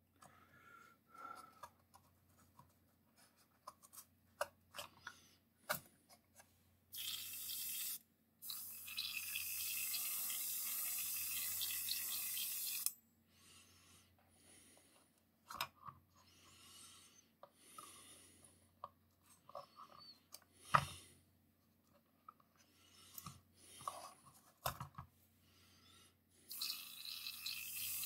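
Airbrush spraying paint in bursts of steady hiss: a short one about seven seconds in, a longer one of about four seconds, and another starting near the end. Light clicks and taps from handling small parts come in between.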